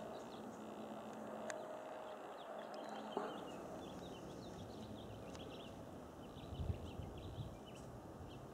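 Birds chirping in many short, high notes that come thicker from about halfway through, over a steady outdoor hiss; a few dull low thumps near the end.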